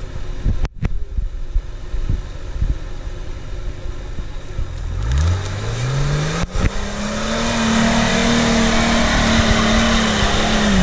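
Modified off-road 4x4's engine running at a low, uneven rumble; about five seconds in the revs climb steeply and are held high as it powers up a grassy slope. The wheels spin and a rushing noise of tyres churning and flinging dirt joins in.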